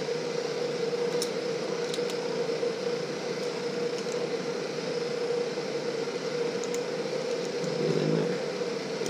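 A steady machine hum in a workshop, with a few light metal clicks as a hex key is worked on the fly cutter's tool bit.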